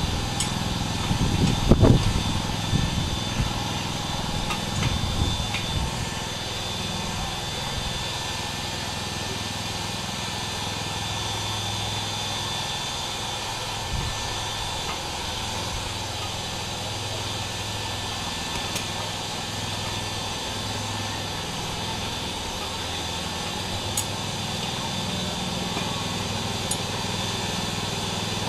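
Blacksmith's forge running with a steady mechanical hum and a thin high whine, with a few knocks and clatter in the first few seconds.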